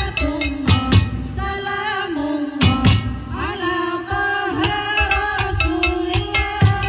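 Women's group singing a qasidah song together into microphones, with rhythmic percussion struck on kitchen utensils and a plastic water-gallon jug. The strikes thin out in the middle while the held sung notes carry on.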